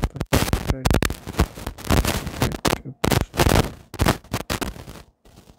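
A person's voice talking in short, harsh, distorted bursts with brief gaps between them, the words not made out.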